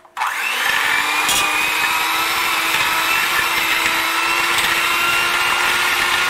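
Electric hand mixer switched on, its motor spinning up with a rising whine and then running steadily as its beaters mash soft cooked cauliflower in a stainless steel pot. A brief click sounds about a second in.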